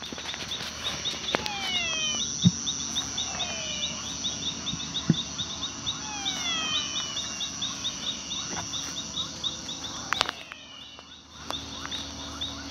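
Nighttime insect chorus: a steady high-pitched trill with a fast, even pulsed chirping just below it. Several descending whistled calls repeat every few seconds over it, and a few sharp clicks and handling rustles come near the start and about ten seconds in.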